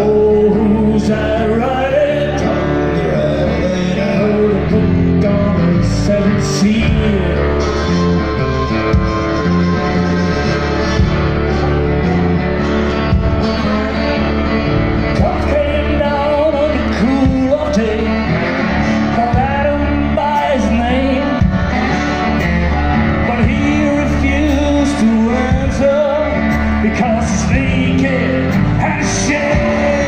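Blues band playing live: acoustic guitar, keyboard and drums with singing over the top.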